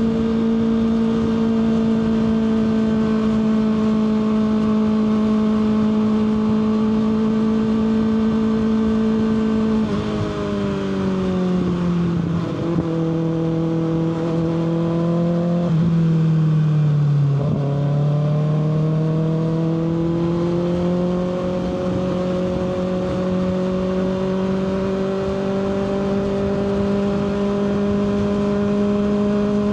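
Kawasaki ZX-6R 636 inline-four engine running on the road. It holds steady revs, then the revs fall off in steps about a third of the way in as the bike slows, and reach their lowest just past the middle. After that the engine note climbs gradually as the bike accelerates gently.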